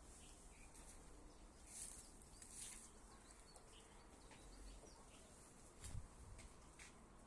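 Faint outdoor ambience with scattered short bird chirps, a couple of brief rustles about two seconds in, and a soft low thump near the end.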